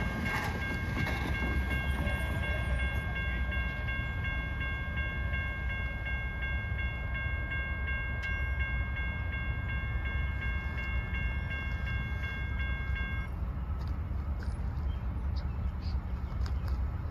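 Railroad grade-crossing warning bell ringing as a repeating electronic ding, stopping about 13 seconds in as the crossing gates come down. A low steady rumble runs underneath.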